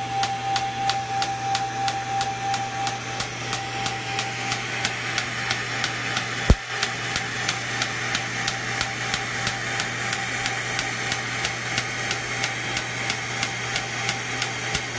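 Rohrer Spectrum erbium laser firing an even train of rapid pulses into facial skin, each pulse a sharp snap, about four a second. Under it is a steady hiss from the smoke-evacuator suction tube held at the face. One louder knock comes about halfway through.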